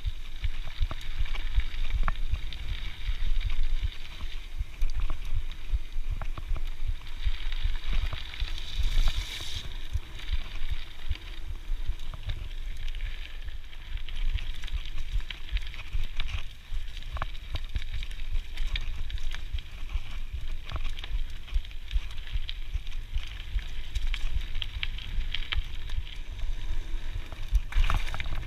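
Scott Genius full-suspension mountain bike ridden along dirt singletrack: tyre noise on the dirt with frequent clicks and rattles from the bike over bumps, under a low rumble of wind buffeting the camera's microphone. A brief hiss about nine seconds in.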